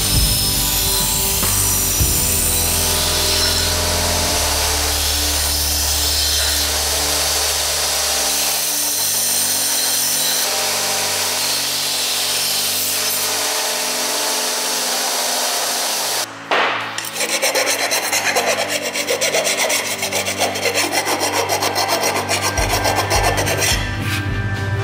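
Belt grinder grinding the end of a steel exhaust pipe, a continuous abrasive rasp, with background music and a bass line under it. The grinding breaks off briefly about two-thirds of the way through, then carries on rougher and pulsing.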